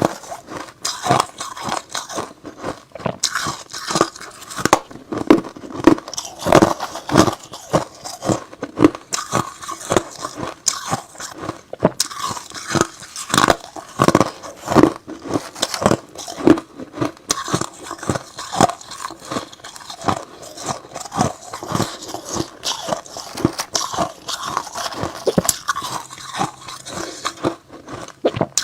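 Close-miked crunching of hard ice and freezer frost being bitten and chewed, a dense run of sharp cracks and crackles, several a second.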